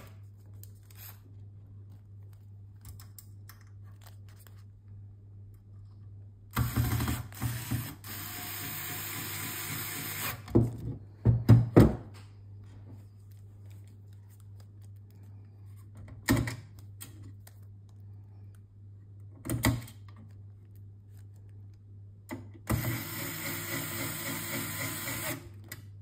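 Electric screwdriver driving screws back into a car head unit's casing, whirring in two spells of about three to four seconds, one about seven seconds in and one near the end. In between come a few sharp clacks of the screwdriver and parts being set down and handled, the loudest cluster around eleven seconds in.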